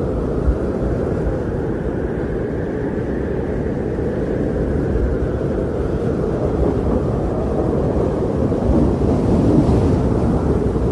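Strong blizzard wind blowing steadily, a deep low rush that swells slightly and eases without breaking.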